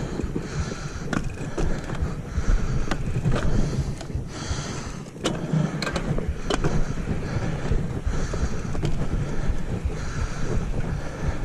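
Mountain bike rolling over loose gravel and sand: tyre noise and frame rattle, with wind on the microphone. A few sharp knocks from bumps come about five to six and a half seconds in.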